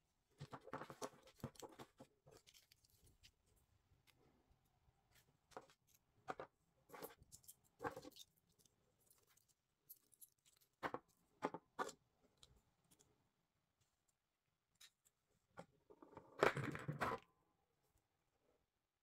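Faint handling noise of small plastic lip gloss containers being picked up, turned in the hands and set down on a table: scattered soft clicks and taps, with a louder burst of handling noise lasting about a second near the end.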